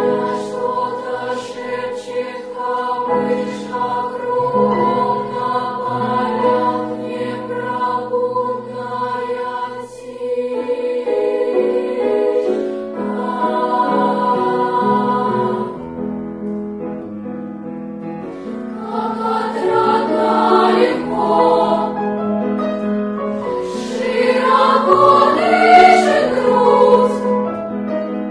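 Children's choir singing, softening for a few seconds a little past the middle, then swelling to its loudest near the end.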